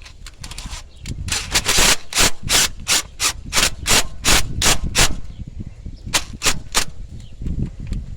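Hand ratchet clicking in quick back-and-forth strokes, about three a second, driving the coil-on-plug hold-down screw back in; it pauses about five seconds in, then three more strokes follow.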